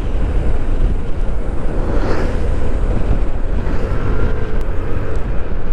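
Wind rushing over the microphone with the steady low drone of a Yamaha NMAX 155 scooter riding over a deeply rutted road.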